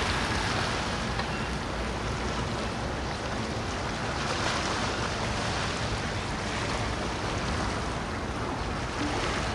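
Steady rushing outdoor noise, with wind buffeting the microphone and no distinct events.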